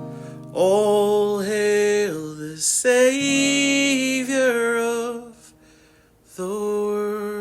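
A singer holding three long notes in turn, each stepping in pitch, with acoustic guitar accompaniment.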